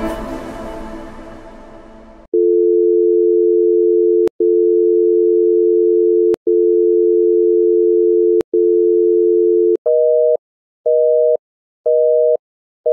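Music fading out, then a telephone dial tone in long stretches of about two seconds, broken by short clicks. About ten seconds in it changes to a busy signal, a higher two-note beep going on and off about once a second.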